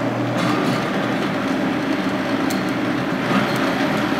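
Vitamix blender motor running steadily at speed, churning watermelon chunks and juice into a liquid purée.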